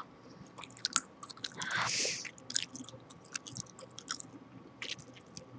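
Gum chewed close to the microphone: a run of wet, smacking clicks of lips, tongue and gum. About two seconds in there is a short breathy hiss.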